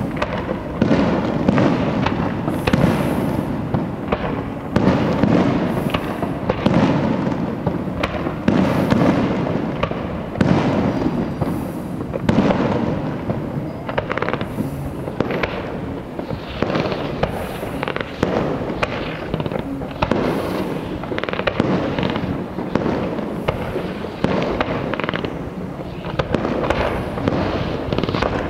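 Aerial firework shells bursting in a continuous barrage: many sharp bangs in quick succession, each trailing into an echoing boom, with no let-up.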